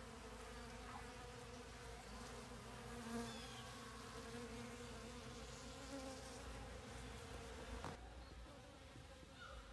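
Honeybees buzzing around an open feeder of sugar water: a faint, steady hum of many wings.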